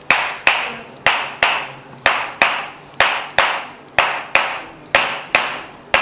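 A small mallet striking a wooden-handled adjusting instrument held against the back. The sharp knocks come in a steady rhythm of pairs, about two strikes a second, each with a short ringing decay. This is percussive release work for back muscle spasm.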